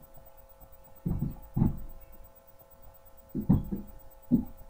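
A blush brush dabbed and swept on the cheek close to the microphone: about four low, muffled thumps, over a steady electrical hum.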